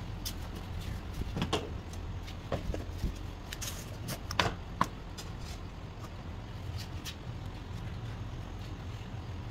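A steady low hum with a few light clicks and knocks of metal being handled, the sharpest about four and a half seconds in.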